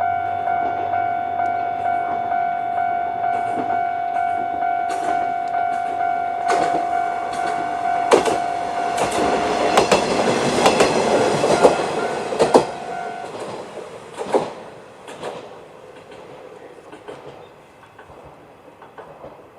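Level-crossing alarm ringing its standard repeating electronic bell tone while an Isumi 350-series diesel railcar passes over the crossing, its wheels clicking over the rail joints. The bell stops about thirteen seconds in, and the wheel clicks fade away soon after.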